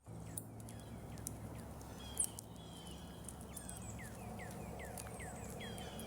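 Small birds chirping: many short, quickly falling notes repeated over and over, with thinner high calls above, over a steady low background rumble.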